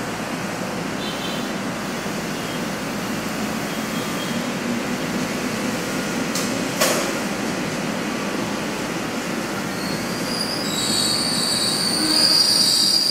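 Jayabaya passenger train running into the station with a steady rumble. There is one sharp clank about seven seconds in, and a high-pitched wheel and brake squeal rises near the end as it slows.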